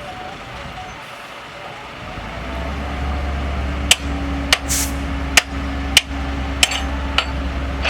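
Heavy construction machine's diesel engine running, with sharp metallic clanks repeating about every 0.6 s from about four seconds in and a short hiss just after the second clank.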